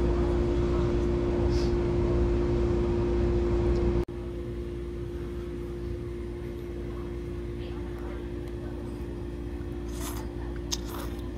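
Steady room tone of a restaurant dining room: a constant electrical or air-conditioning hum with one fixed tone. After about four seconds it abruptly drops to a quieter, similar background, and a couple of faint short sounds come near the end.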